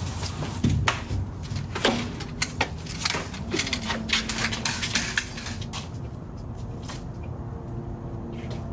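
A front door shutting, followed by an irregular run of knocks and taps from crutches on a concrete walk, which die away after about five seconds.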